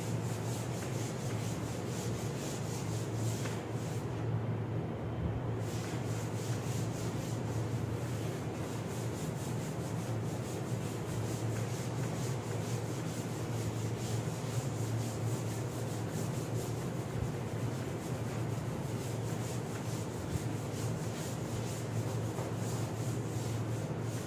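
Cloth rubbing over a chalkboard in steady, repeated back-and-forth strokes, erasing the chalk writing.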